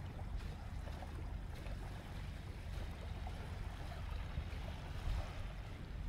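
Wind buffeting the microphone in a steady low rumble, over a faint wash of small waves on a sandy shore.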